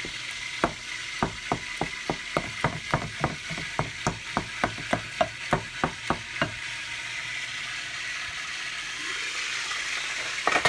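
Wooden spoon mashing boiled eggplant in a bowl, knocking against the bowl about three times a second, then stopping about six and a half seconds in. A steady sizzling hiss of frying runs underneath and grows a little louder towards the end.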